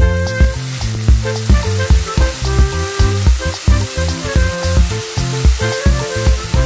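Background music with a steady beat, over the sizzle of tuna, onion and bell pepper frying in a pan and being stirred with a wooden spatula.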